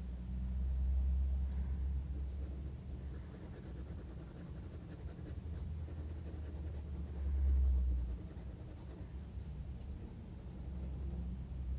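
Felt-tip pen strokes scratching and hatching across hot-pressed cotton watercolour paper, in short irregular strokes, over a steady low rumble that swells twice.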